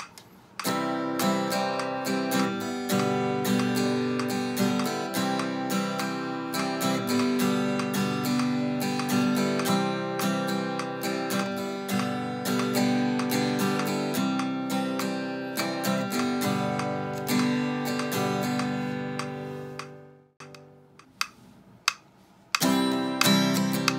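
Acoustic guitar strummed in a steady eight-beat pattern, the chords ringing between evenly spaced strokes. The strumming fades out about twenty seconds in; after a short pause with a couple of faint knocks, a sixteen-beat strumming pattern starts near the end.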